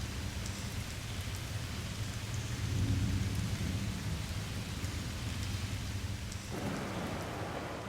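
Steady rain with rolling thunder, the rumble swelling loudest about three seconds in.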